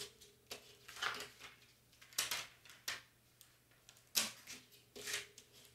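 Plastic transfer tape and its backing being handled and pressed flat by hand: a string of short crinkles and rustles about once a second, the loudest a little past the middle.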